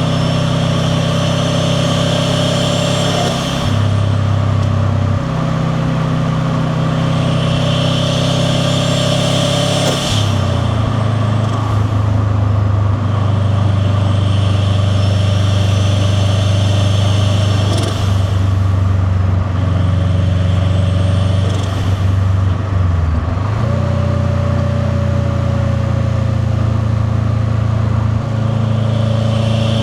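Turbocharged flat-four of a 2001 Subaru WRX STi with a catless downpipe and titanium cat-back, running under way, its note stepping in pitch several times. A turbo whistle rises slowly three times and cuts off sharply each time.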